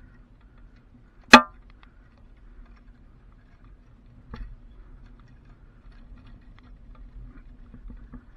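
Lashing wire being worked at a clamp on a steel messenger strand: one sharp metallic clink with a short ring about a second in, then a softer knock about three seconds later, over a faint low rumble.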